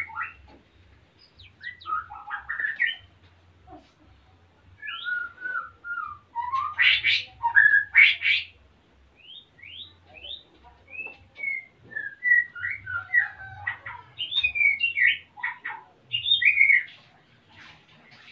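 Male white-rumped shama singing in bouts: quick varied whistles, slurred gliding notes and short harsh notes, with short pauses between phrases, the loudest phrases about halfway through. A male in breeding condition.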